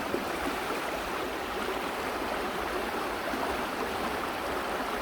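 Shallow river rapids rushing over a rocky bed, a steady, even rush of water; the speaker calls them raging.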